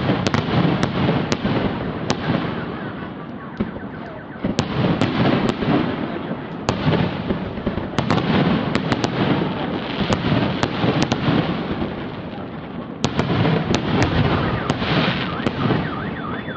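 Fireworks display: aerial shells bursting in rapid succession, with sharp bangs and crackling over a continuous rumble of explosions. The bursts come in waves, with brief lulls about four and twelve seconds in.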